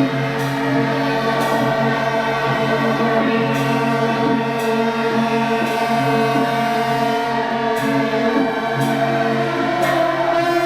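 Loud music with many long-held pitches sounding together, marked by short bright strokes roughly once a second.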